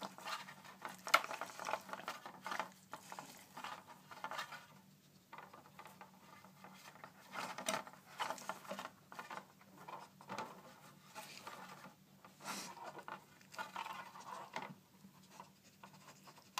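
An Airedale terrier nosing and pawing at a plastic treat-puzzle board: irregular soft taps, rubbing and clicks as the plastic pieces shift, with a few sharper knocks.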